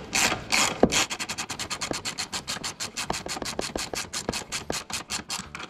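Socket ratchet clicking rapidly, about nine clicks a second, as it is worked to run in and tighten a mounting bolt of the engine torque strut. A few slower, louder strokes come in the first second.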